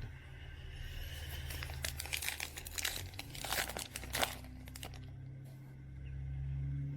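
Foil wrapper of a trading card pack crinkling and tearing as it is ripped open, a dense run of crackles lasting a couple of seconds, over a low steady hum.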